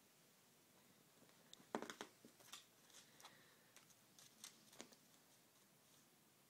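A cat playing with a small red toy on carpet: a scatter of short sharp clicks and rustles starting just under two seconds in, the first the loudest, dying away about five seconds in.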